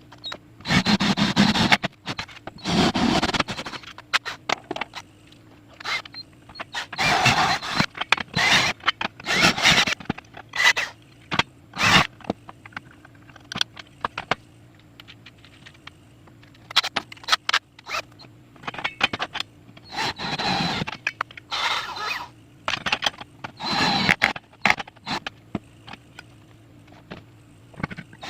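Assembly work on an amplifier box: short scraping, whirring bursts about a second long, several times over, from holes being made and bolts fitted, between sharp clicks and knocks of parts and tools being handled.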